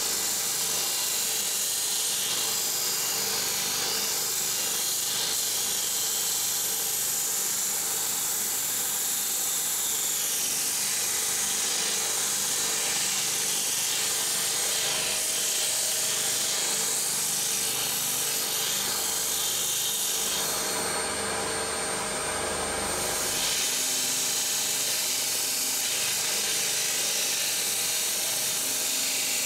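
Shop-built 180 mm disc sander running, with a plywood piece pressed against the abrasive disc and sanded in a steady grind. The grinding briefly eases about two-thirds of the way through, then resumes.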